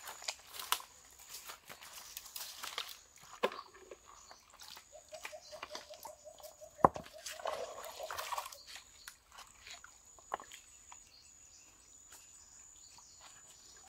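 Scattered knocks and rustles of stream stones and dry leaves being moved by hand while searching for river crabs, with one sharp knock about halfway through. A short rapid trilled call sounds just before it.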